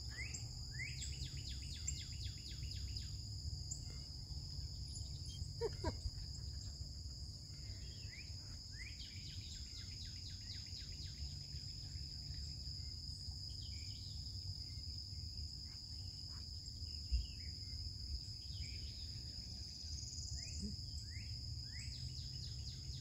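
Outdoor ambience of insects trilling in a steady high drone, with a bird repeating short falling chirps in series, over a low steady rumble.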